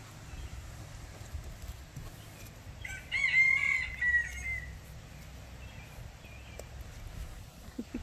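A rooster crowing once, about three seconds in, ending in a drawn-out note about a second and a half long.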